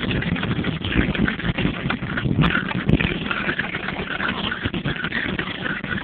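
GMC Yukon's engine running at idle, heard from inside the cabin as a steady, rumbling drone.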